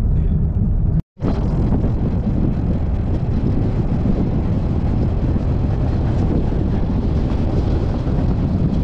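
Steady rushing, rumbling noise with wind buffeting the microphone, broken by a brief dropout about a second in.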